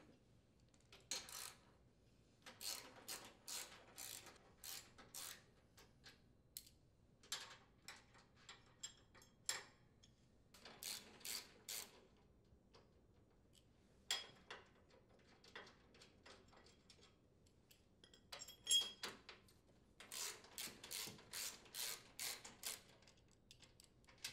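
Socket ratchet wrench clicking faintly in several runs of quick strokes as it unthreads mounting bolts, with a few single clicks and taps between the runs.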